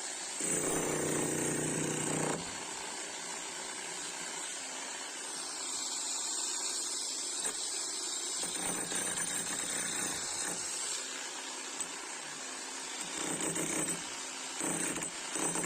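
An 11 kg electric demolition hammer chiselling concrete. It runs in louder stretches: one for about two seconds near the start, and shorter ones near the end, with lower steady noise between.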